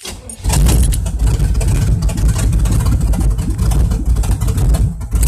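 Carbureted 1980 Chevy engine with an HEI distributor firing up on the key, running steadily and loudly, then cutting off suddenly near the end as the key is turned off: the newly rewired ignition switching on and off from the key.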